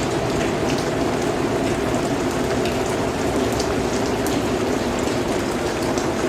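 Heavy rain pouring steadily, a dense even hiss with scattered individual drops ticking on a surface.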